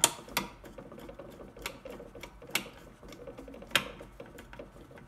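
Flathead screwdriver turning a screw into the plastic housing of a Humminbird ICE 35 fish finder: irregular sharp clicks and light ticks as the screw is driven in, with five louder clicks spaced about a second apart.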